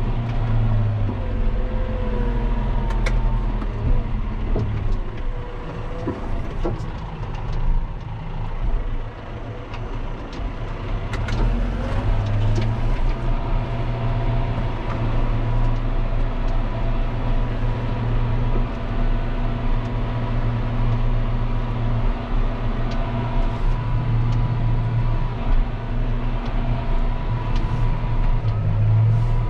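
John Deere 6140M tractor's diesel engine running steadily under load while pulling a tine cultivator through soil, heard from inside the cab. There is a low, even drone with a steady high whine over it and a few short knocks and rattles.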